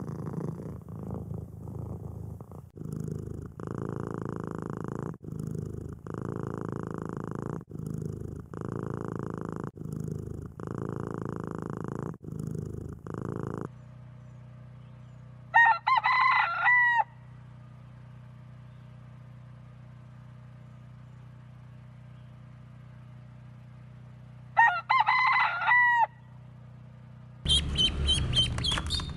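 A kitten purring in a steady rhythm of long in-and-out breaths. About halfway through, a rooster crows twice, some nine seconds apart, over a low steady hum. Near the end, ducklings start peeping rapidly.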